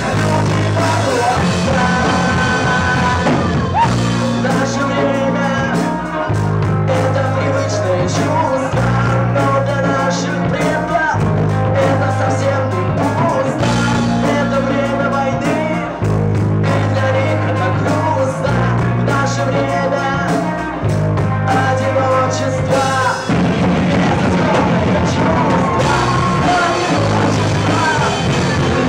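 Live rock band playing a song with a singer, low held notes under the vocal changing every second or so.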